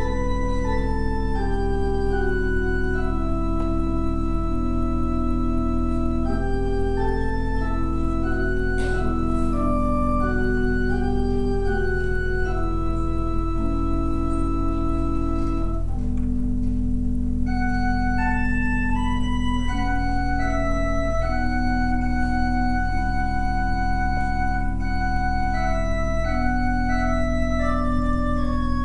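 Church pipe organ playing slow, sustained chords with a quiet melody moving stepwise above them, over a steady low drone, as meditative communion music.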